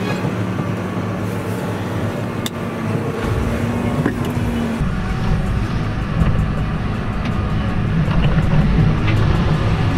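John Deere 6215R tractor's six-cylinder diesel engine running steadily under way, heard from inside the cab. Its deep low rumble grows stronger about three seconds in.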